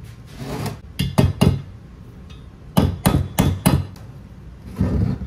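Hammer blows knocking a seized piston out of an aluminium jet-ski cylinder block: a few sharp knocks about a second in, then a quick run of about six, and another near the end. The piston is stuck in its bore by rust from salt water left in the engine.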